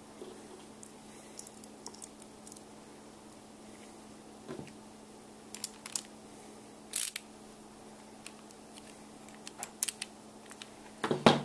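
Small metal parts of a steel construction-kit robot clicking and clinking as they are handled and a nut is turned with a small screwdriver; scattered light ticks, with a louder cluster of clicks near the end. A low steady hum runs underneath.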